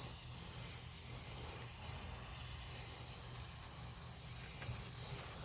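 Steady hiss of pressure escaping from a large leak at a threaded fitting on a black iron gas line under pressure test. The fitting's threads are broken inside.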